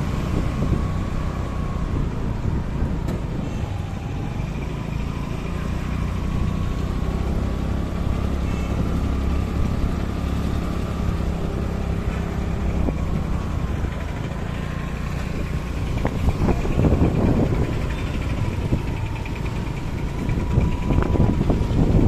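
A motor vehicle's engine running steadily amid street traffic, heard from aboard a moving vehicle.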